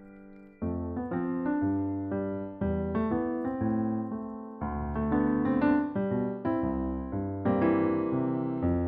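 Solo piano background music: a held chord dies away, then about half a second in a new phrase of struck notes begins and plays on.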